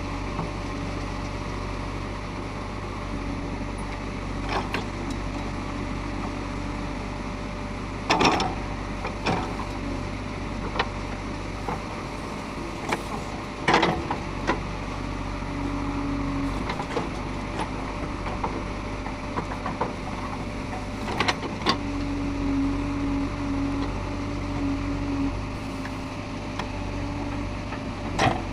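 JCB 3DX Xpert backhoe loader's diesel engine running steadily while it digs, with a tone that swells at times under hydraulic load. Sharp knocks come now and then, the loudest about 8 and 14 seconds in, typical of the bucket striking soil or its stops.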